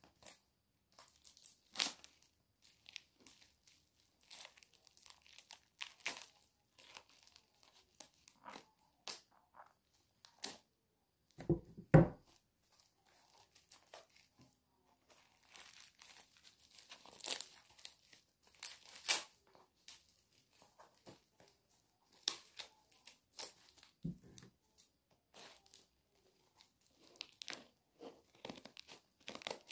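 Parcel packaging being torn open and crumpled by hand in irregular bursts of rustling and crackling, with two louder thuds about twelve and twenty-four seconds in.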